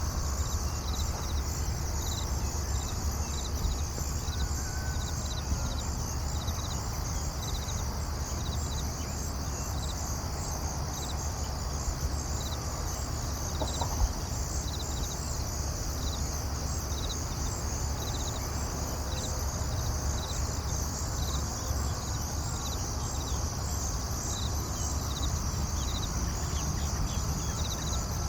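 Outdoor nature ambience of insects chirping in a steady, evenly pulsing high-pitched chorus over a low steady rumble, with one short click about halfway through.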